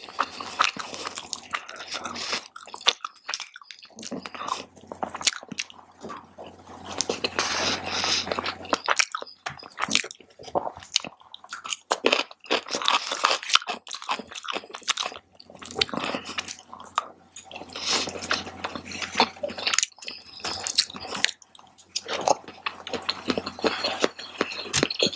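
Close-miked chewing and biting of a mouthful of tofu fried rice: a steady run of irregular, wet mouth clicks and soft crunches.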